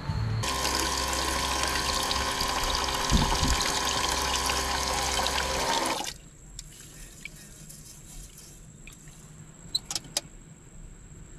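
Water running from a tap into a metal pot in a stainless steel sink for about five and a half seconds, then stopping. After that, a quieter stretch of sloshing with a few light metal clinks of the pot as cloudy rinse water, which looks like rice-washing water, is tipped out.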